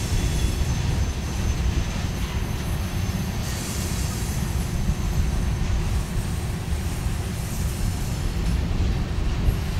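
Empty covered grain hopper cars of a freight train rolling past: a steady rumble of steel wheels on the rails.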